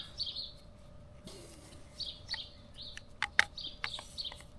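Birds chirping over and over in short calls, with a few sharp clicks past the middle, the loudest about three and a half seconds in, as metal hand tools are handled at the battery.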